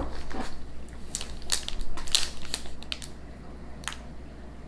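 Plastic food wrapper crinkling as it is handled, in irregular sharp crackles that are busiest about halfway through.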